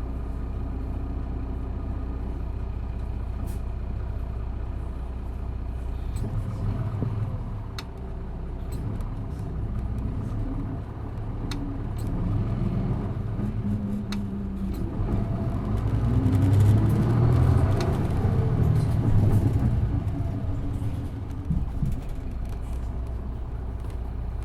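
An Isuzu Erga PJ-LV234N1 city bus's diesel engine heard from inside the cabin. It idles steadily at first, then from about six seconds in it picks up and runs under load with the pitch rising and falling, loudest a little past the middle, before settling again near the end.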